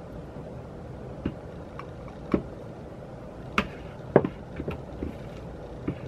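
A handful of short, sharp taps and clicks from a spatula knocking against the rim of a plastic food processor bowl, irregularly spaced, over a steady low room hum.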